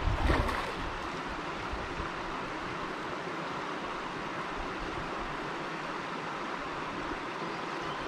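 Creek water flowing past and lapping at a mud bank, a steady rush throughout. A brief low thump in the first half-second.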